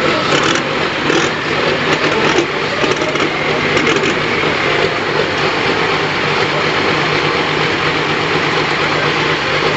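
Turbocharged engine running steadily at an even speed, loud and close.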